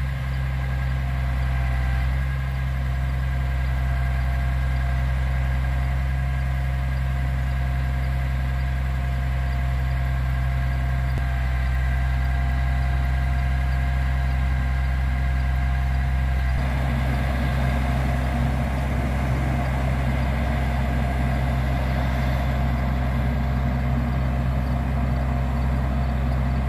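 Crane truck's engine running steadily to drive the boom's hydraulics while a pallet is lifted off the bed. About two-thirds of the way through, the sound changes suddenly and a busier, higher whine joins the engine's hum.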